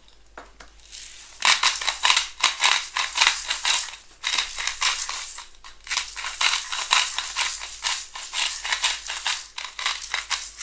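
Hand-twisted salt grinder grinding salt: a fast, dry, crackling rasp that starts about a second and a half in and goes on in spurts, with short breaks around four and six seconds in.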